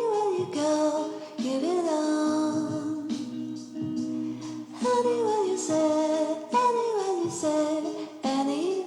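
Music: a song with a woman's singing voice, its phrases ending in notes that slide downward.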